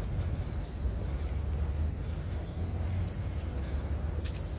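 Birds chirping in short, repeated calls over a steady low rumble.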